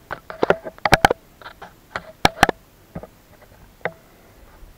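An irregular run of sharp knocks and clicks, some with a short ring, loudest about a second in and again a little after two seconds.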